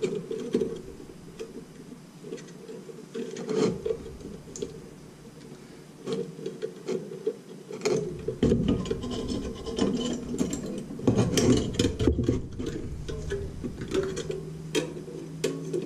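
Scratchy rubbing and many small clicks of wire and metal as nichrome wire is twisted and handled on the ice maker's metal cutter-grid frame, busier and louder in the second half.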